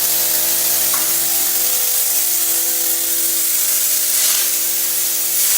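Steady hiss of compressed air from a hopper texture spray gun blowing popcorn ceiling texture through its middle-size orifice, over a steady hum. The hiss swells a few times near the end.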